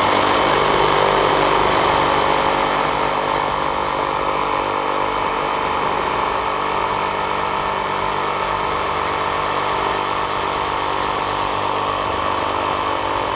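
Makita JR002G 40V cordless reciprocating saw cutting through a 90 mm square timber, its blade stroking in straight (non-orbital) mode. The saw starts abruptly and runs steadily under load through the cut, a little louder in the first couple of seconds.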